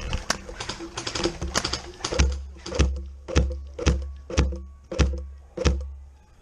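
Music with a steady beat: from about two seconds in, a heavy bass thump lands roughly twice a second, with sharp clicks between the beats.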